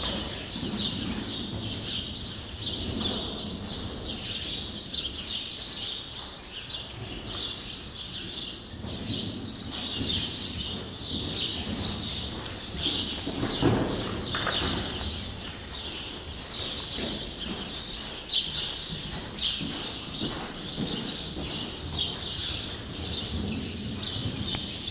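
A flock of small birds chirping nonstop, a dense chatter of short high chirps, with faint hoofbeats of a horse cantering on sand footing underneath.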